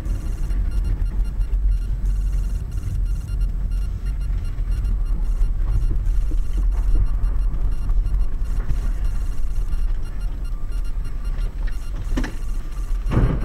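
Car driving on a rough, frost-heaved, potholed road, heard from inside the cabin: a steady low rumble of road and engine noise. Two sharp thumps come near the end, the second the louder.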